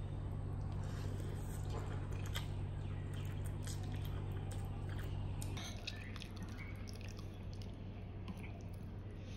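A person chewing soft instant noodles at close range, with small clicks of chopsticks and a fork on a ceramic plate. A steady low hum sits underneath and becomes quieter just past halfway.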